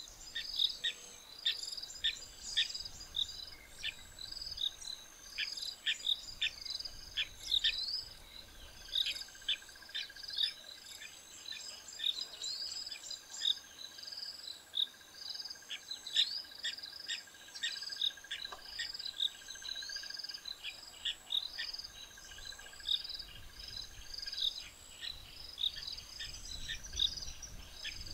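Bush ambience of insects chirping in quick repeated pulses and birds giving many short, sharp calls. A thin steady high tone comes in about a quarter of the way through and stops near the end.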